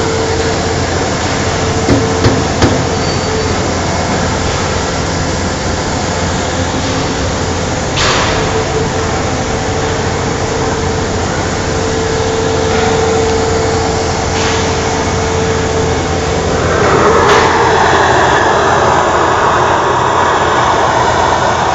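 EXAIR Line Vac air-powered conveyor running, rushing air and plastic pellets rattling through it into the hopper, over a steady low machine hum. A few sharp knocks come through, and about seventeen seconds in the rush grows louder.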